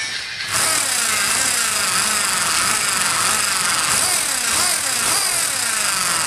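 Homemade K'nex ride model spinning, its plastic parts giving a loud, steady whirring rattle that starts abruptly about half a second in, with a pitch that sweeps up and down again and again as it turns.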